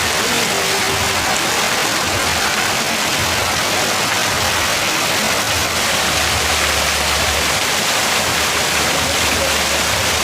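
Steady rushing water, an even unbroken roar like a waterfall.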